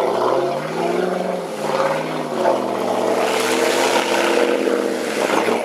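Off-road vehicle engine running hard under load, its pitch rising and falling slightly. A rushing hiss joins it midway through.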